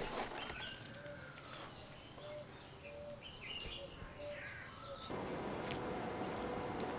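Quiet outdoor background with a few faint, short bird calls. About five seconds in it cuts abruptly to a different, steadier background hiss with a faint hum.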